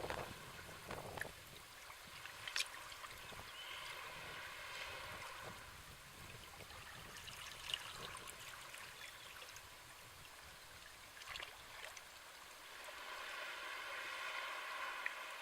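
Sea waves washing in, a steady wash of water with a few sharp ticks, swelling louder near the end.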